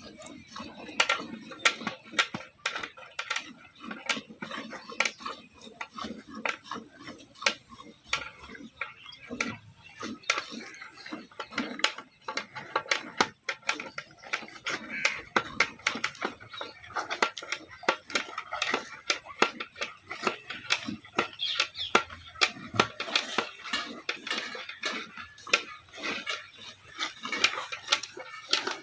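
Buffalo being milked by hand: a quick, uneven run of milk squirts striking a metal pail.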